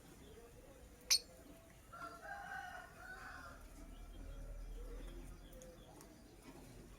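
Bird sounds at a low level: a single sharp, high chirp about a second in, then a longer, lower drawn-out call lasting about a second and a half.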